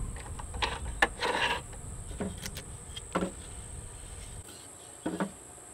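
Scattered wooden knocks and clicks as the freshly parted wooden Cuban yoyo reel blank is handled and lifted off the wood lathe, over a low rumble that stops about four and a half seconds in. A steady high-pitched whine runs in the background.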